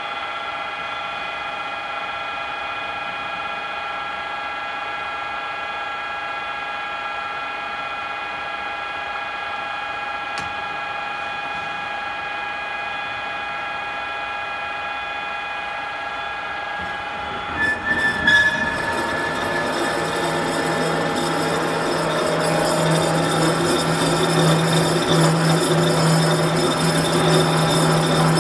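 Z30125 heavy-duty radial drilling machine drilling metal with a large twist drill: the spindle drive gives a steady whine of several even tones. About eighteen seconds in the sound turns louder and rougher, with a low hum under the noise of the cut.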